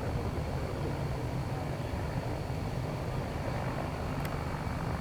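Steady, low, distant rumble of the Antares rocket's first-stage engines during ascent. A faint steady high tone runs through it, and there is a single brief click near the end.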